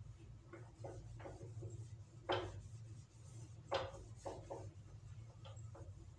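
Whiteboard being wiped clean: a series of short rubbing strokes against the board, the two loudest about two and a half and nearly four seconds in, over a steady low hum.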